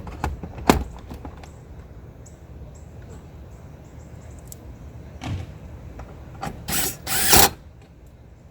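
A few sharp knocks and clicks, then a power drill run in short bursts near the end, the loudest about a second long, driving fasteners with a 5/16 socket as the console armrest goes back in.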